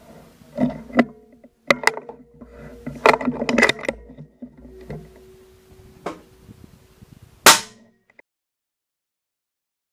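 A run of sharp clicks and knocks, then a single rifle shot about seven and a half seconds in, the loudest sound here.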